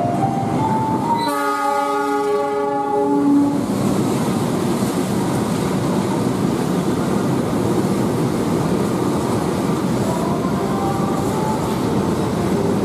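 Indonesian railway diesel locomotive sounding its horn, one chord of several tones held for about two seconds starting about a second in, as it hauls a passenger train past. This is followed by the steady noise of the locomotive and coaches running by on the rails.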